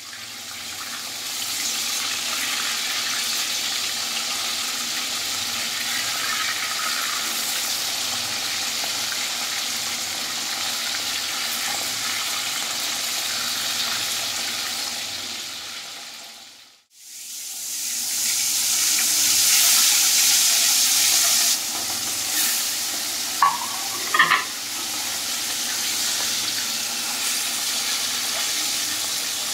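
Pomfret fish pieces sizzling as they shallow-fry in hot oil in a kadai, stirred and turned with a wooden spatula. The sizzle breaks off briefly a little past halfway, comes back louder for a few seconds, and has a couple of short clicks near the end.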